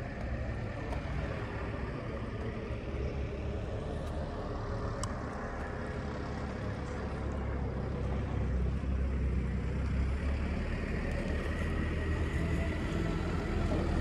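Steady low outdoor rumble with no distinct machine sound, and one faint click about five seconds in.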